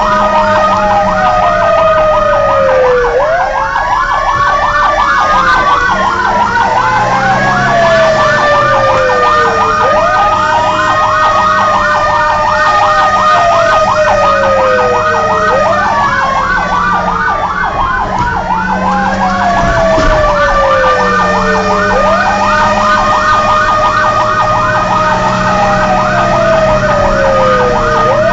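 Fire engine sirens heard from inside the cab while the truck drives. One siren wails, rising quickly and falling slowly about every six seconds, over a fast warbling siren and a steady high tone, with the truck's engine running underneath.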